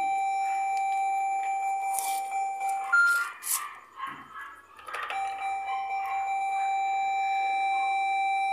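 Electronic fruit slot machine sounding a steady high beep, held for about three seconds, cut off by a short higher beep and a few seconds of rustling and clicks, then held steady again.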